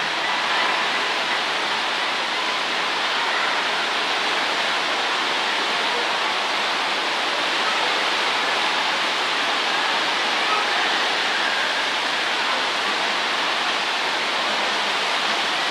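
Steady rushing hiss of water pumped in a thin sheet up the ramp of a standing-wave surf simulator, unchanging throughout.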